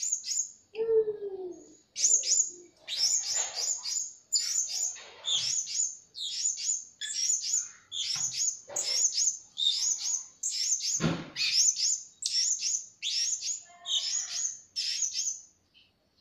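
Blue-crowned hanging parrots giving a long run of shrill, high-pitched chirping calls, short notes in quick clusters of two or three repeated about every half second.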